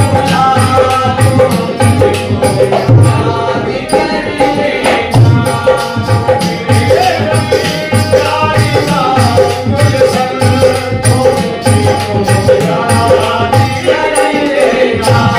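Live North Indian folk ghazal: male voices singing over a harmonium, a dholak beating a steady rhythm, and hand-held rattles and clappers clicking along.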